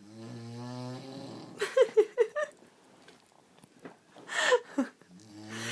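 Man snoring loudly: a steady buzzing snore, then a quick run of short, sharp sounds, another burst a couple of seconds later, and the buzzing snore starting again near the end.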